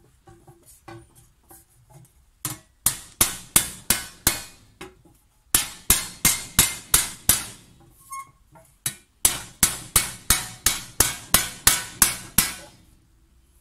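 Hammer blows on a thin copper disc laid over the end of a wooden post, shaping the sheet toward a tray. A few light taps come first, then three runs of sharp blows at about three a second, each with a brief metallic ring.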